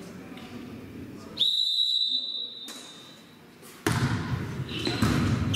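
Referee's whistle blown once, a single steady note of just over a second, the signal to serve. A couple of seconds later comes the sharp thud of a volleyball being struck, then players calling out in the echoing gym.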